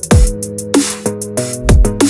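Electronic background music with a heavy beat: deep bass hits that slide down in pitch, twice, over hissing cymbal hits and held synth chords.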